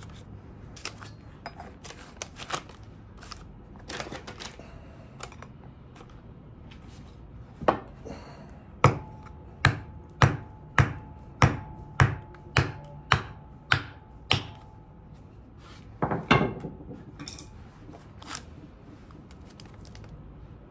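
Hammer striking a flathead screwdriver to drive the old oil seals out of BMW E36 M3 differential side-seal housings. About ten sharp metallic blows come a little over half a second apart through the middle, with a short burst of blows after them and lighter clinks of metal parts being handled before and after.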